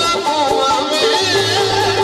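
Live Punjabi folk music: an instrumental passage of wavering melody lines over a held tone.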